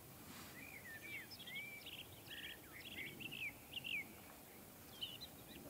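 Faint songbird song: a run of short chirps and slurred whistled notes, several a second, with pauses in between.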